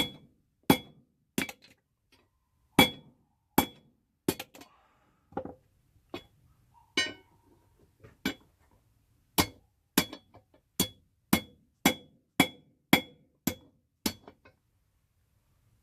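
Blacksmith's hand hammer striking rebar on an anvil, each blow with a short metallic ring. The blows are irregular at first, then settle into a steady run of about two a second until near the end.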